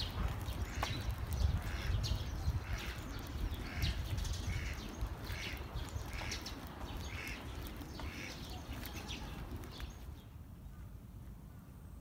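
A bird calling over and over in a steady series of short calls, about one every three-quarters of a second, against a low outdoor rumble. The calls stop about ten seconds in.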